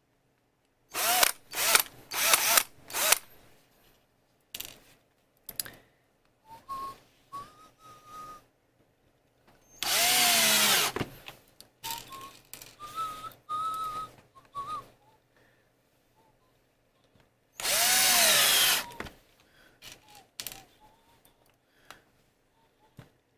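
Electric drill driving screws to fasten caster wheels: several quick trigger bursts at the start, softer low-speed runs in between, and two full-speed runs of about a second each, the motor winding down in pitch as the trigger is released.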